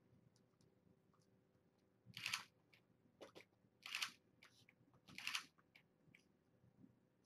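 A DSLR camera's shutter firing three times, about a second and a half apart, with a few faint ticks in between.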